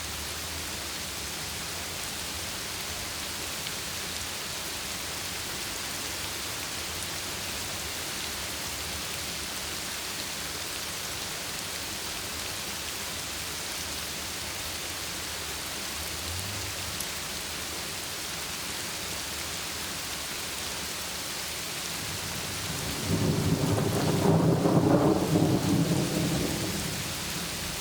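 Heavy rain falling steadily, with a roll of thunder rumbling in near the end, swelling for a few seconds and then fading.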